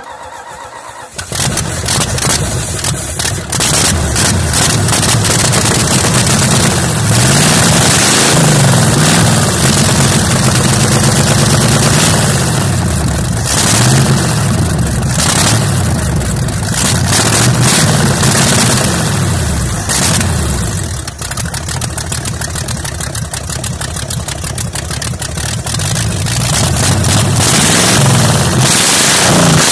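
Cold start of a V8 engine on open tube headers: it cranks briefly and catches about a second in, then runs loud with repeated throttle blips, the revs rising and falling every couple of seconds.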